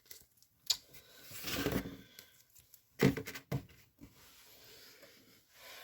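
Pokémon trading cards being handled on a table: a rustle of card and a few sharp taps, the loudest about three seconds in.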